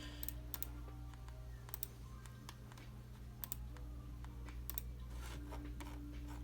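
Faint, sparse clicks of computer keys being pressed at irregular intervals, over a steady low electrical hum.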